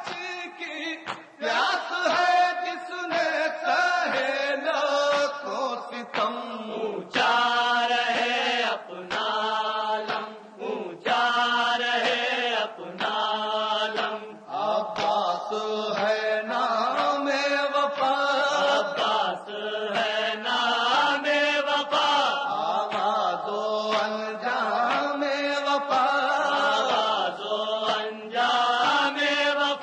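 A man chanting an Urdu noha, a Shia lament, in long held melodic phrases that rise and fall.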